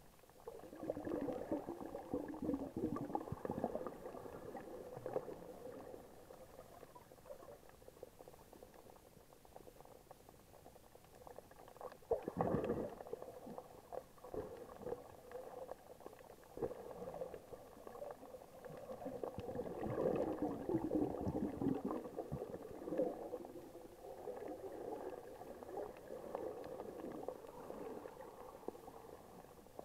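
Muffled underwater bubbling and water noise heard through an action camera's waterproof housing. It comes in bursts every several seconds, with quieter stretches between.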